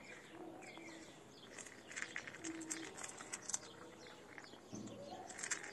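A cat crunching dry kibble from a dish: faint, irregular crunches.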